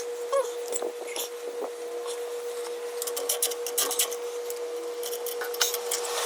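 Scattered clicks and scraping of hand tools and metal parts being handled, over a steady hum.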